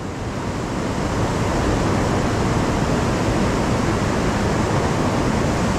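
A swollen, high-running river rushing steadily, a constant even wash of water noise.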